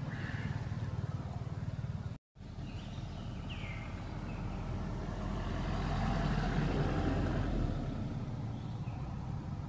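Steady low rumble of motor traffic. It swells as a vehicle passes through the middle and eases off near the end, with a brief break in the sound a couple of seconds in and a short high chirp soon after.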